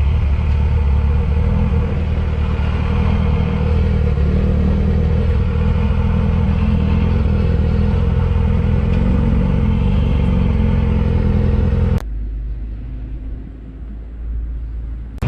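Motorcycle engine running steadily at cruising speed under rushing wind, recorded on the moving bike. About 12 seconds in, the sound cuts off abruptly to a quieter, lower rumble.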